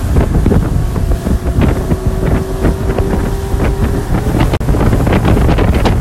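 Yamaha outboard motor running at speed on a small boat, a steady engine note held under the rush of water and spray, with wind buffeting the microphone.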